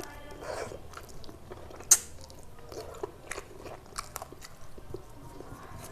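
Close-up eating sounds: chewing and biting, with small wet mouth clicks throughout. One sharp, loud crack about two seconds in, likely a crunchy bite of raw salad or a hand against the plate.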